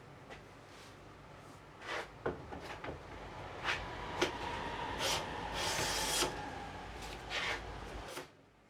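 Hand plane cutting wood: a series of scraping strokes with a few sharp knocks, stopping shortly before the end.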